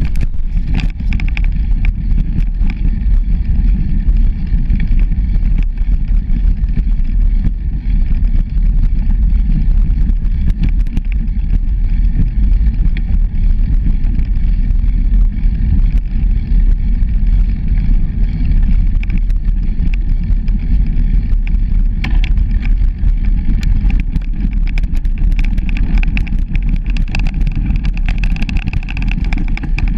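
Bicycle ridden fast over a bumpy dirt trail: a loud steady rumble of wind on the microphone, with frequent short rattles and clicks from the bike and tyres jolting over the ground.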